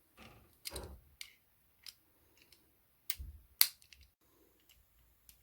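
A string of small, irregular clicks and taps from a Corgi Juniors diecast Volvo 245 model being handled and its parts fitted back together, with the sharpest click about three and a half seconds in.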